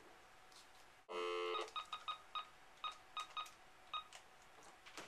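A telephone's steady tone for about half a second, then about ten quick keypad beeps in an uneven rhythm as a phone number is dialled.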